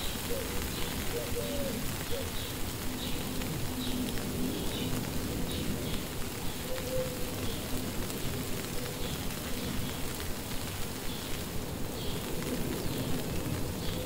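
Steady rain falling on foliage, with faint short high bird chirps scattered through.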